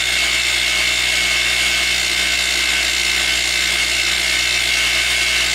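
Grizzly G0704 (BF20) benchtop milling machine's 750 W DC motor and spindle running unloaded in high gear at top speed, about 3200 rpm, with a steady high whine.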